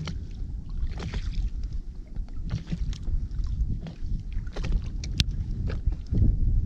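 Wind rumbling on the microphone and water slapping against the hull of an inflatable boat, with scattered clicks and knocks throughout and one sharp click about five seconds in.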